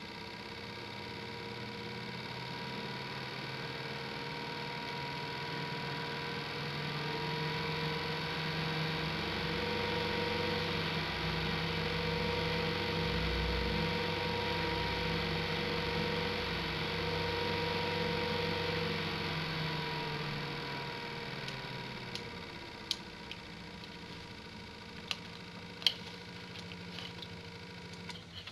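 A 120 mm PC fan running, air noise with a steady hum and a few fixed tones; it grows louder as its speed is raised, then slows and drops away about two-thirds of the way through. A few sharp clicks follow near the end.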